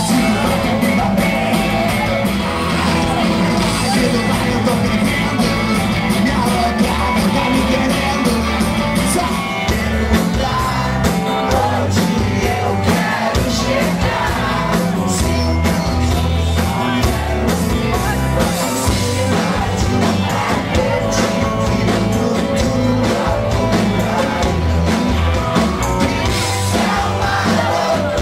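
Rock band playing live, with electric guitars and a male singer belting into the microphone over a steady, loud backing.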